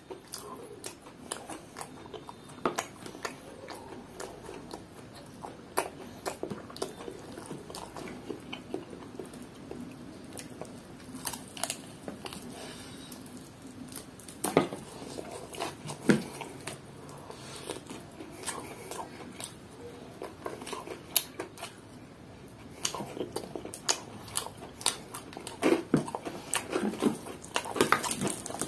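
A person biting and chewing crispy fried chicken and pulling the coated meat apart by hand: scattered short crisp crunches and clicks over steady chewing, coming thicker near the end.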